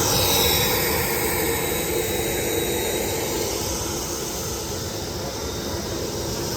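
Jet aircraft engine running with a steady rush and a high whine that drops in pitch at the start and then holds, easing slightly in loudness.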